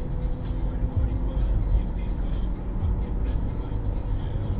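Steady low road and engine rumble inside a car's cabin at highway speed, with a few faint knocks.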